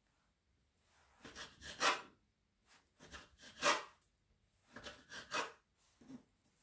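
Kitchen knife slicing through rolled pastry dough and scraping on the table, in three short bursts of several strokes each, about a second and a half apart, with a lighter one near the end.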